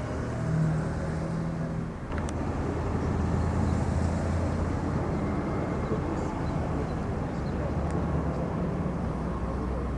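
A vehicle engine running with a steady low hum under steady rushing noise. Its pitch drops about two seconds in and comes back up near the end.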